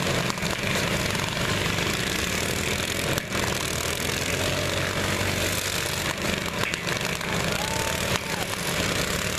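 Several riding lawn mower engines running at once in a steady, continuous drone.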